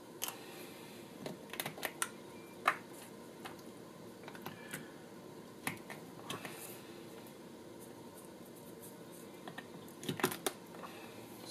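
Scattered small clicks and taps from handling multimeter test leads: an alligator clip clamped onto the fuel level sending unit's terminal and the lead plugs worked at the multimeter's jacks. The sharpest click comes about two and a half seconds in, with a cluster of clicks near the end.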